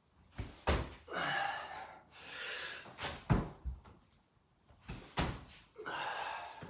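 Dull thuds of a person's hands, body and feet landing on a rubber gym floor and mat as he drops his chest to the floor and stands back up, with several heavy breaths out between the thuds.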